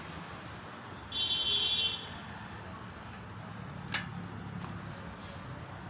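Steady low rumble of street traffic, with a brief shrill high-pitched sound about a second in. Near four seconds comes a single sharp click as the handle of a glass restaurant door is taken and the door opened.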